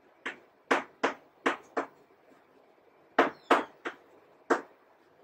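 Chalk writing on a blackboard: a run of short, sharp taps as the letters are stroked on, five in the first two seconds and four more starting about three seconds in.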